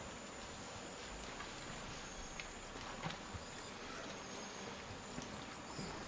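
Outdoor ambience in an African rainforest clearing: a steady high-pitched insect drone over a soft background hiss, with a few faint clicks. No elephant calls are heard.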